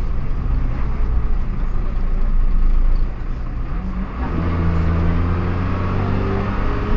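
Dennis Dart single-deck bus running, heard from on board: a rough rumble, then about four seconds in a steady droning whine with several pitches sets in and holds, the odd gear whine this bus makes.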